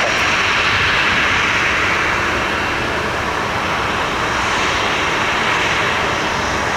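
Jet airliner engine noise: a steady, loud rushing roar that is fullest in the first few seconds and eases slightly after.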